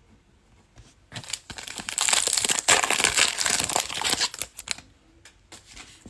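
Plastic foil wrapper of a Panini Playoff football card pack being torn open and crinkled by hand, a dense crackling that starts about a second in and stops near five seconds.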